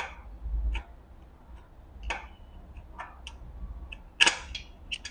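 Irregular light metallic clicks and taps of a screwdriver being set against the oil-drain screw in the oil pan of an industrial sewing machine, ready to loosen it; the loudest tap comes about four seconds in.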